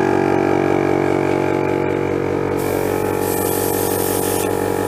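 Small airbrush compressor running with a steady electric hum. About two and a half seconds in, the airbrush is triggered and a hiss of spraying air and paint comes in over the hum for a couple of seconds, then stops.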